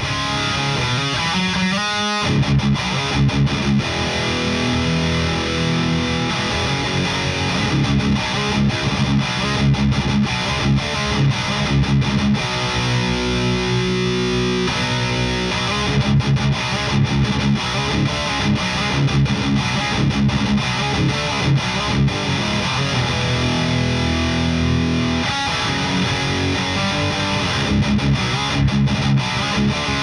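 High-gain distorted electric guitar playing heavy metal riffs through a Victory Super Kraken amp with a presence/resonance pedal in its effects loop, recorded close-miked in an isolation cab. The riffing stops briefly about two seconds in, and a few seconds of held chords come around the middle.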